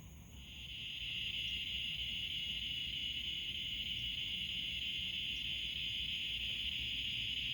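Night insects calling from pine trees in a steady, high-pitched chorus. The chorus has paused and swells back in within the first second, then holds even.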